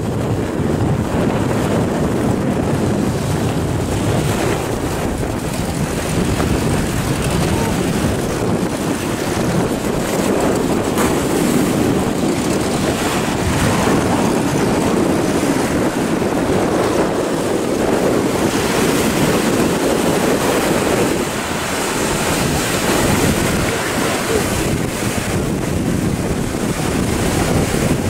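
Wind buffeting the microphone over rough sea and breaking waves, a steady noise with no clear engine tone.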